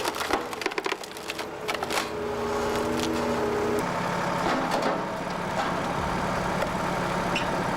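Wood chipper running with its engine humming steadily while wood is fed in, with dense cracking and splintering as the wood is chipped; the engine note changes about four seconds in.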